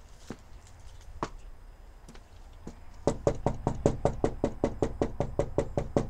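A few scattered clicks, then, about three seconds in, rapid, even knocking on a house's front door, about six or seven knocks a second.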